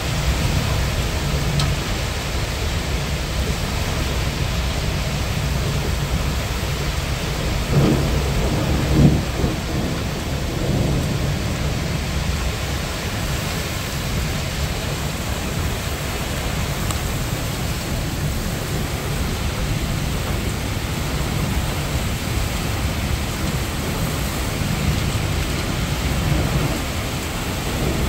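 Heavy rain pouring steadily, with the deep rumble of thunder underneath. A couple of louder swells come about eight and nine seconds in.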